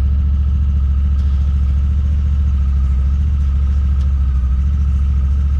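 A vehicle engine running steadily: a loud low pulsing rumble with a faint steady whine above it.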